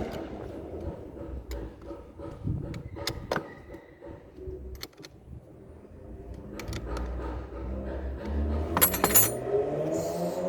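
Metal tools and battery terminal hardware clinking and clicking, with a cluster of loud clicks about nine seconds in. Right after, a car engine starts up, its pitch rising.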